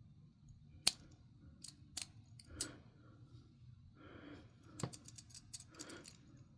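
Small TSA combination luggage lock clicking as it is worked by hand: a few separate sharp clicks, then a quick run of clicks in the second half.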